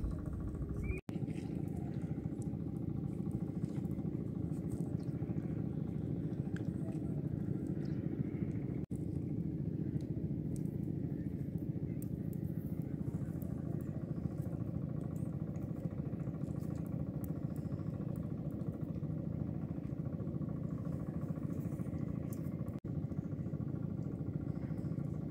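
An engine running steadily, a low even drone, broken by three brief dropouts in the audio.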